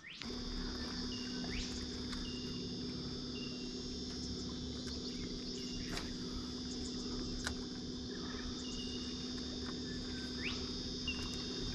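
Steady, continuous drone of cicadas, with a low steady hum beneath it and a few short bird notes.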